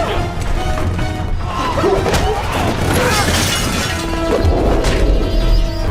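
Fight-scene soundtrack: dramatic score under a run of sharp hits and crashes.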